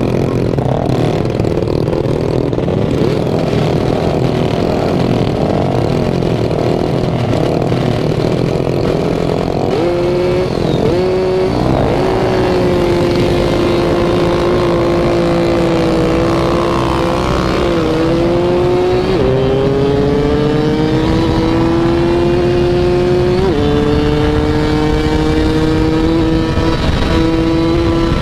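Several motorcycle engines revving over each other. From about ten seconds in, one engine, a Yamaha F1ZR two-stroke, pulls through the gears: its pitch climbs slowly in each gear and drops sharply at each of several shifts.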